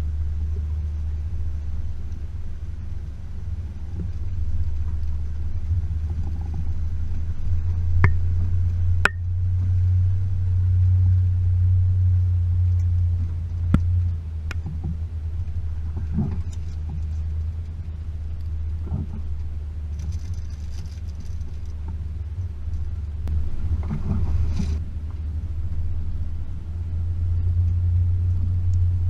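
Range Rover P38's 4.0-litre V8 running as the vehicle drives slowly along a rough lane, a steady low rumble that swells and eases. Occasional sharp knocks and clicks break in several times.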